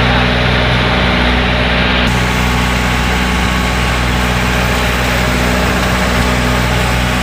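Engine of a small motorized fishing boat running steadily at constant speed, a low even drone.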